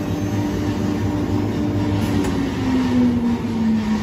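Double-head CNC wood router running, a steady mechanical hum under a tone that slides lower in pitch over the second half.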